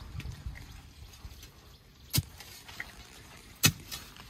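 Long digging bar striking the ground: two sharp strikes about a second and a half apart.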